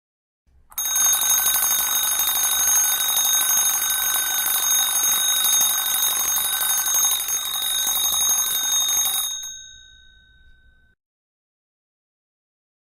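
Electric school bell ringing continuously for about eight and a half seconds, then cutting off, its gong ringing on and fading for a second or so.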